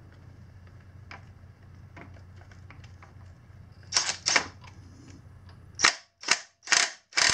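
DeWalt cordless impact gun hammering in short trigger bursts on a tight camshaft sprocket bolt: two bursts about four seconds in, then a run of bursts about two a second near the end.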